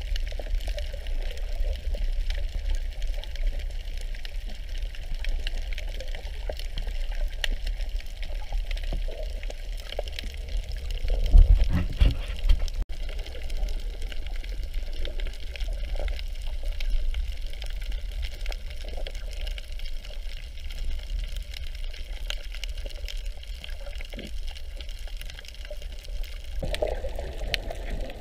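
Water heard through an underwater camera: a muffled, steady low rumble and sloshing of moving water, with a louder surge lasting about a second near the middle.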